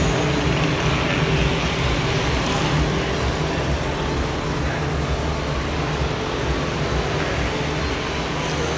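Steady hall noise at an indoor car show: a constant low hum under a wash of distant crowd voices.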